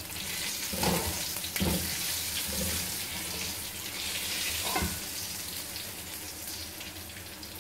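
Onions frying in hot oil, a steady sizzle, with a few short knocks of a spoon in the pan as the browned onions are lifted out.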